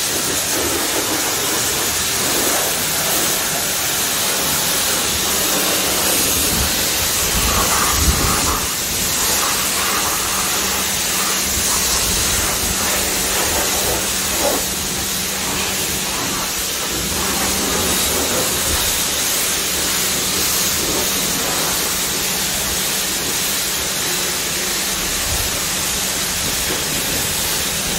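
Steady, loud spraying hiss of a car-washing jet working on the car, with a faint steady low hum beneath.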